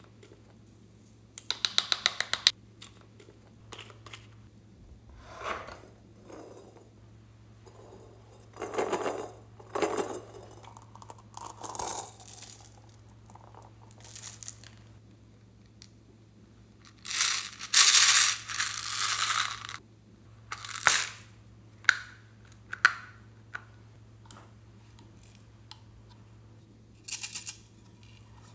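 Small plastic and pearl beads rattling and clattering as they are shaken from containers and dropped into a glass dish of slime, with clicks from small plastic containers being opened. The sound comes in separate bursts, some a fast run of ticks, the longest and loudest about two-thirds of the way through.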